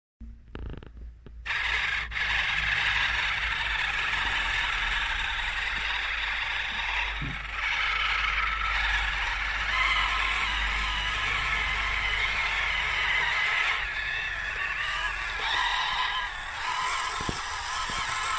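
Fayee RC tracked model truck driving over sand: its electric drive running steadily with the tracks scraping and rattling, starting about a second and a half in.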